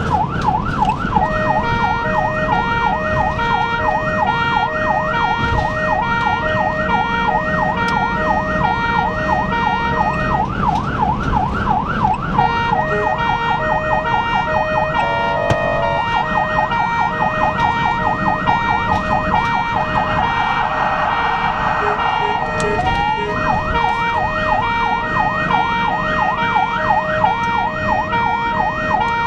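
Ambulance siren sounding continuously in a fast rising-and-falling yelp, about three sweeps a second, heard from inside the cab over engine and road noise as the ambulance drives at speed. The siren pattern changes briefly twice, about halfway through and again near two-thirds of the way, before returning to the yelp.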